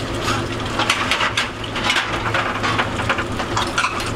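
Irregular clatter of kitchen work: a quick run of short knocks and clicks over a steady low hum.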